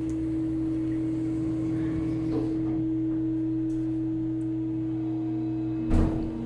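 Passenger elevator car humming with a steady tone. A loud thump comes about six seconds in, after which the hum drops to a lower pitch.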